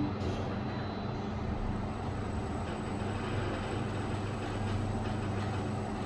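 Schindler 5000 machine-room-less lift car setting off and travelling down, a steady low hum and rumble of the car in motion. A short low tone sounds at the very start.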